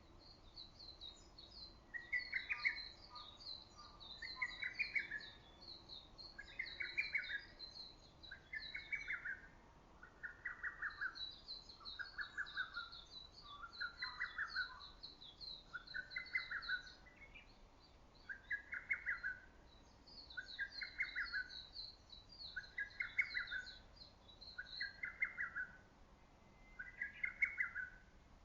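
Lesser cuckoo (hototogisu) calling over and over, a quick staccato phrase of whistled notes about every two seconds. A second, higher-pitched small bird twitters in long runs behind it.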